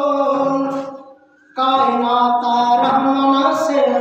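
A man chanting a Brahui naat (devotional poem praising the Prophet) into a microphone without accompaniment, holding long, drawn-out notes; he pauses briefly about a second and a half in, then takes up the melody again.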